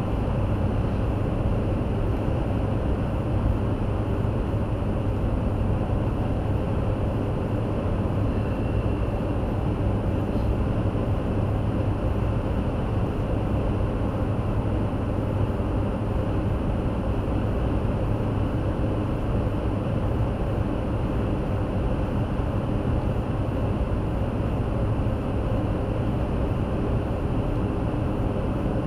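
Steady road and engine noise inside a car cruising at highway speed: an even low drone of tyres and drivetrain that stays the same throughout.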